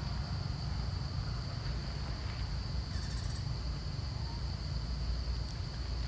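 Outdoor forest ambience: a steady high-pitched insect drone over a low rumble of wind on the microphone, with a short high chirp about halfway through.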